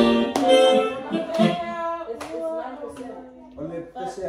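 Electronic keyboard playing sustained chords in an organ- or accordion-like voice while a group of people sing along, with a few hand claps.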